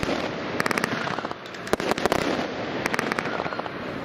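Diamond 'Space Walk' consumer firework going off, with a steady hiss and three clusters of rapid sharp crackling pops as its effects burst.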